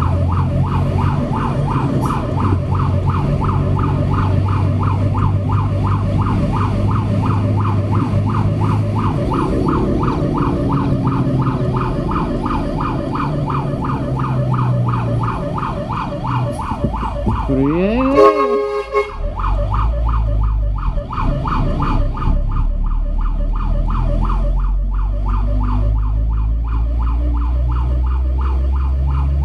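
Fire truck's siren yelping in fast, even cycles over the truck's steady engine hum, heard from inside the cab. About two-thirds of the way through, a brief rising tone cuts in.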